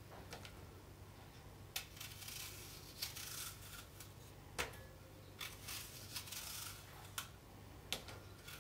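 Small kitchen knife peeling an apple by hand: faint, repeated scraping strokes as the blade cuts under the skin, with a few soft clicks.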